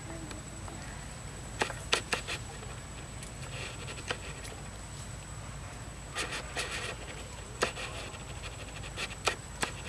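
Dry leaf litter and twigs crackling and rustling in short, irregular bursts, as from movement through forest-floor undergrowth.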